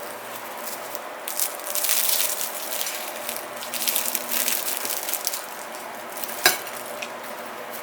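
Food sizzling as it cooks, a steady hiss with irregular crackles and one sharp click about six and a half seconds in.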